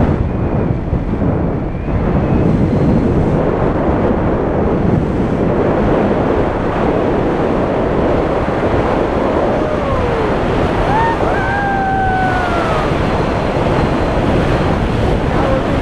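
Wind from the paraglider's flight buffeting the action camera's microphone: a loud, steady rush of air with no break.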